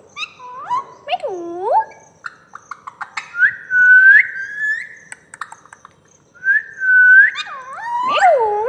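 Alexandrine parakeet whistling: a string of swooping whistles that dip and rise, a quick run of clicks, and two longer whistles that climb in pitch.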